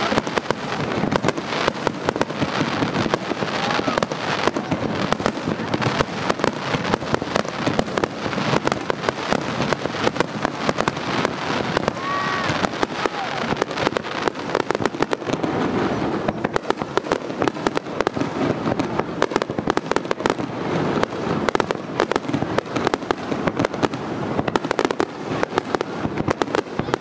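Starmine fireworks barrage: many shells launched and bursting in rapid succession, a dense, continuous rattle of sharp reports and crackles.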